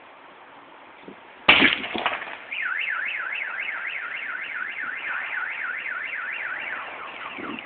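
A sudden loud bang about a second and a half in, with a second smaller hit just after, from the truck fire. Then a car alarm starts, wailing up and down about three times a second, and switches to a different falling tone pattern near the end.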